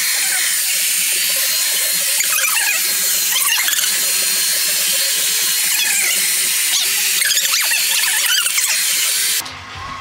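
Revlon Tourmaline Ionic hair dryer running with a steady rush of air and a whine, switched off suddenly near the end.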